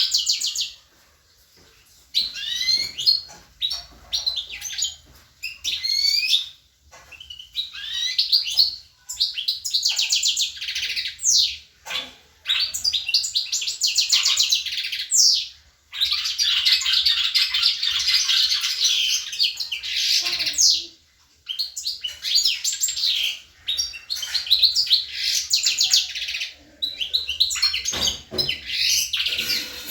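Songbird singing: fast twittering and trilled phrases of rapid, sweeping notes, in bursts of one to several seconds with short pauses between them.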